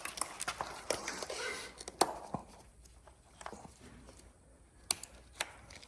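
Sharp plastic clicks and handling rattle as engine wiring-harness connectors are unclipped and pulled off, the loudest snap about two seconds in and two more near the end.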